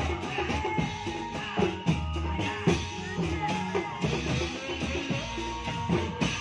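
Traditional Indramayu reog accompaniment music: a steady rhythm of drums under many quick, ringing pitched notes from struck percussion.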